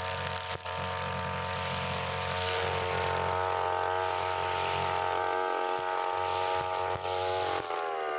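UMA UM328 brush cutter engine running steadily, its pitch rising a little about three seconds in, then dipping and picking up again near the end.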